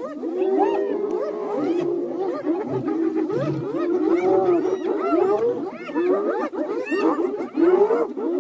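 A chorus of many animals calling at once, with dense overlapping short calls that rise and fall in pitch.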